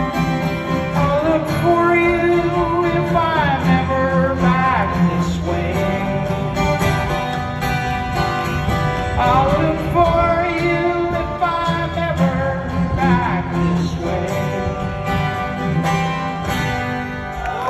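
Live acoustic country-folk music: strummed guitar under a bending melody line, the closing passage of the song.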